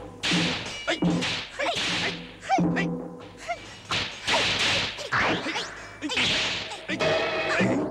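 Fight-scene sound effects: a rapid run of whooshing swishes, a dozen or so at under two a second, as weapons and sleeves are swung.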